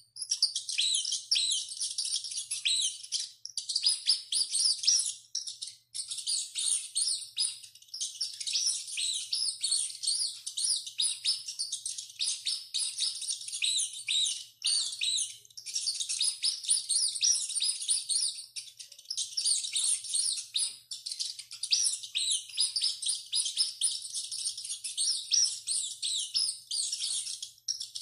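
Rats squeaking: a dense, continuous run of rapid, high-pitched squeaks and chirps, broken by a few short gaps.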